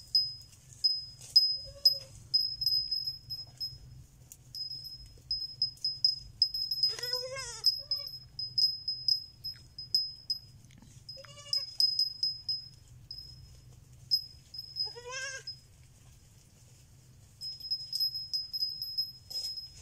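A baby goat bleating three times, several seconds apart, each a short high wavering call. A constant high-pitched chirping runs underneath.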